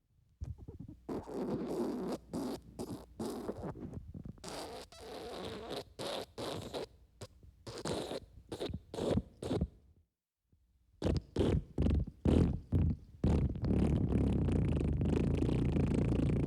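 Wet fart sound effect: a long run of short, broken farting noises, stopping briefly about ten seconds in and then starting again. In the last few seconds it turns into a steadier, unbroken sound.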